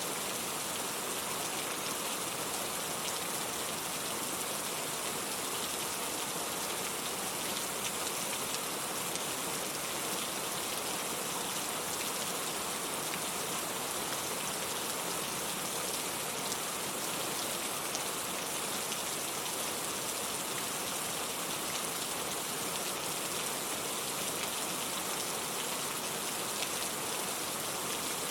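Steady rainfall hitting a surface, an even hiss with fine patter of drops.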